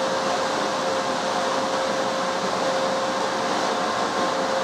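Cooling fans of an FA2K 2 kW FM power amplifier running while the amplifier is on air at about 1.6 kW output: a steady rush of air with a faint steady tone in it.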